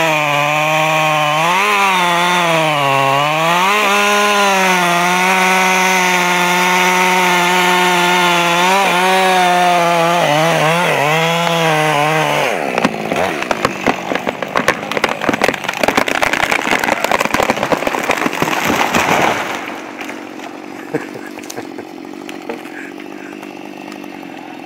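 A two-stroke chainsaw runs at high revs through a felling cut, its pitch dipping a few times as the chain bogs in the wood. About twelve seconds in the engine sound gives way to about seven seconds of loud cracking and crashing of wood and branches as the tree comes down, then a quieter steady running sound, with the saw idling.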